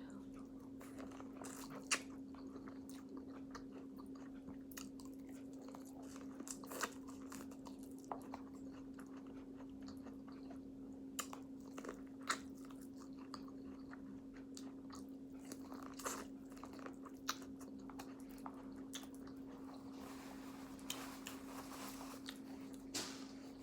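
Close-miked eating: scattered crunchy bites and chewing of seafood-boil food, most likely corn on the cob, as short sharp clicks at irregular intervals over a steady faint hum.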